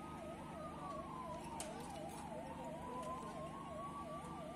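Two emergency sirens sounding at once: one a fast warble rising and falling about three times a second, the other a slow wail gliding up and down in pitch. Both are faint.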